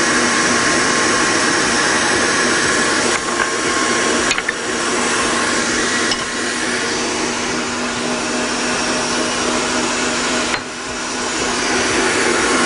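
Electric stand mixer running steadily, its whisk beating eggs, sugar and oil in a stainless steel bowl. The motor's hum dips briefly near the end.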